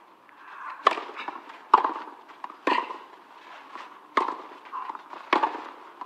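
Tennis ball being struck by rackets and bouncing on the clay court in a rally that begins with a serve: sharp pops about once a second.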